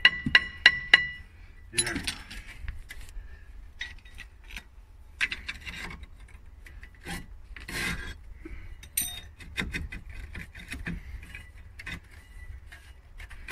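Hammer tapping a rust-seized cast iron brake rotor on a Dodge Caravan's rear hub: about four quick, ringing metal strikes in the first second. Then scraping, rubbing and light clinks as the rotor is wiggled loose on the rusted hub.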